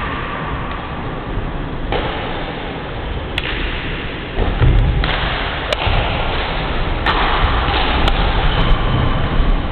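Badminton rally: sharp racket strikes on the shuttlecock every second or two, with players' footsteps thudding on the wooden court, over steady background noise.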